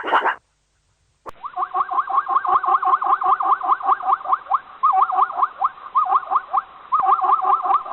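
The tail of a dog's bark, then about a second in an animal starts a fast, steady run of short rising chirping calls, about five a second, with brief pauses.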